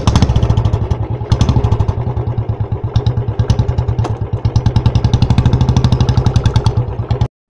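Motorcycle engine running, with rapid, even exhaust pulses over a steady low drone; it cuts off suddenly near the end.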